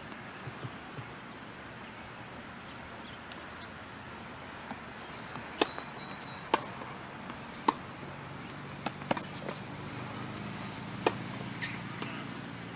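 Tennis rally on a hard court: sharp pops of the ball off rackets and the court surface, roughly one a second from about five seconds in, over steady background hiss.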